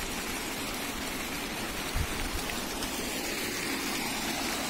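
Water running and splashing steadily in a shallow stepped fountain pool, with small fountain jets falling back into it.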